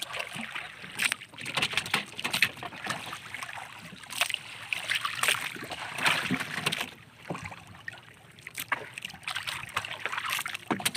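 Sea water lapping and splashing against a small canoe's hull, with irregular small knocks and splashes, going quieter for a moment about seven seconds in.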